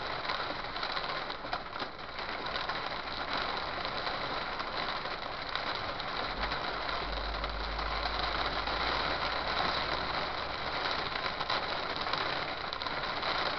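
Hail and heavy rain pelting a moving vehicle's body and windshield: a dense, steady clatter of small impacts over the road and engine noise. A low rumble joins for a few seconds in the middle.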